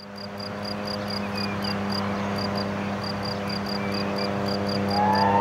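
Cricket chirping evenly, about four chirps a second, over a steady low hum, with a few short bird calls. About five seconds in, a civil-defence siren starts up with a rising wail: the first trigger of the Swiss general alarm test.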